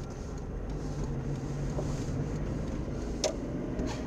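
Car driving on a wet road, heard from inside the cabin: a steady low engine and road drone. A single sharp click about three seconds in.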